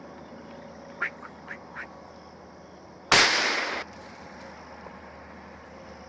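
A single hunting gunshot about three seconds in, sharp and loud, with a short echoing tail as the shot is fired up into the trees at a squirrel. About two seconds before it come three short, high calls.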